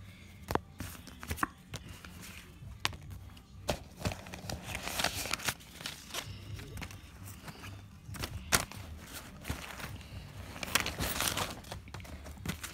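Rustling and handling noise: a backpack and things in it being moved about, with scattered sharp clicks and knocks and two longer bursts of rustling, about five and eleven seconds in.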